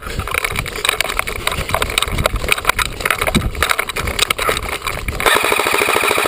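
An airsoft rifle with a camera mounted on it jostling and rattling as it is carried and moved. Near the end comes a burst of about a second of rapid, evenly spaced clicks, typical of an automatic airsoft electric gun firing.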